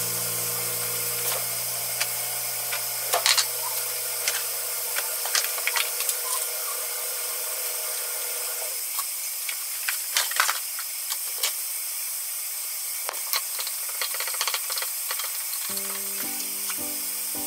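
Gentle background music that drops out in the middle and returns near the end, over kitchen handling sounds: a cloth wiping a wooden cutting board, a wooden spatula scraping and stirring miso paste in a plastic tub, and light clinks as shredded carrots are mixed in a glass bowl, with a steady high hiss underneath.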